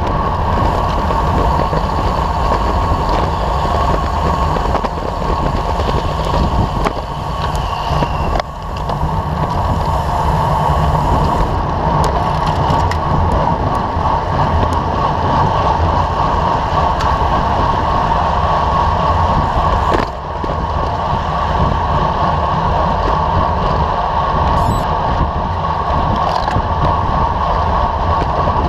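Steady wind rush over the microphone of a camera on a moving road bike, mixed with tyre noise on asphalt. It eases briefly twice.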